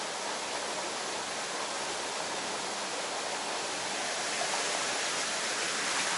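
Steady rushing of flowing stream water, like a small waterfall or rapids.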